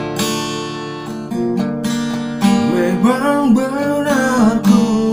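Acoustic guitar being strummed, with a man's singing voice coming in about halfway through.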